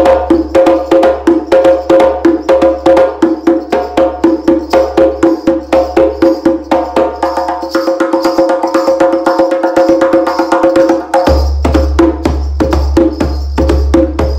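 Djembe played with bare hands: a steady rhythm of sharp, ringing strokes, about four a second, which come closer together for a few seconds in the middle.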